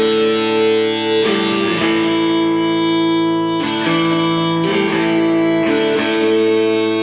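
Background music led by guitar, with held chords that change every second or so.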